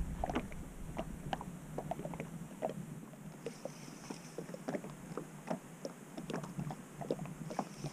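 Faint, irregular small ticks and slaps, a few a second, typical of small waves lapping against an inflatable boat's hull.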